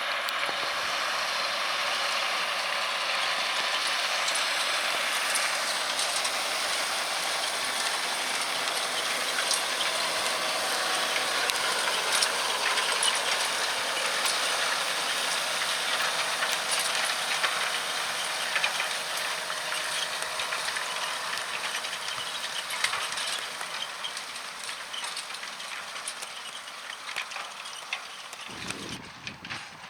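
A John Deere 6195R tractor ploughing with a Kverneland plough and furrow press: a steady rushing noise dotted with many small crackling clicks, fading in the last third as the outfit moves away.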